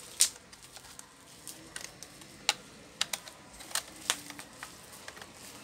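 Plastic bottom cover of a Lenovo IdeaPad Y460 laptop being pressed back into place, its clips snapping shut: one loud click at the start, then scattered lighter clicks.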